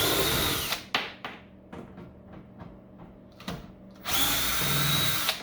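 Power drill backing screws out of a battery charger's case in two bursts of about a second each, each a steady whine. Light clicks and knocks come between the bursts.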